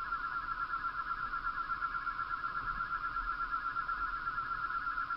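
A steady, mid-pitched electronic drone with a fast, even flutter: a background sound bed.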